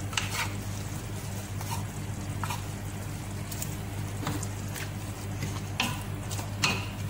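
Wooden spoon stirring a thick tomato and chicken stew in a stainless steel pot: wet squelching with scattered clicks and knocks of the spoon against the pot. A steady low hum runs underneath.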